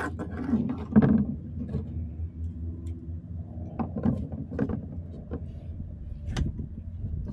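Scattered knocks and clatter as a caught snook and a flexible fish ruler are handled against a kayak, over a steady low hum.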